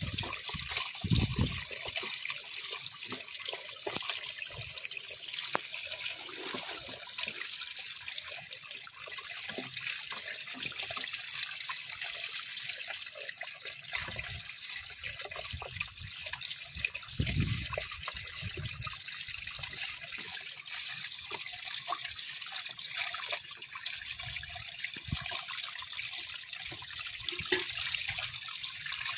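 Shallow water running and splashing steadily through a gap in a mud bank beside bamboo-slat fish traps, with small fish splashing in the flow. A couple of dull low thumps come about a second in and again after about seventeen seconds.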